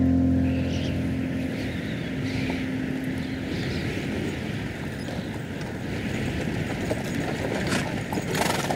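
A held music chord dies away in the first few seconds, leaving a steady rumble and clatter of a mounted procession: horses' hooves and a horse-drawn carriage rolling on a dirt road, with sharper hoof strikes near the end.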